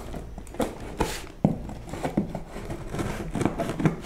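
Scissors snipping and scraping through stiff packing tape on a cardboard box, in irregular clicks and scrapes with a short sharp rasp about a second in.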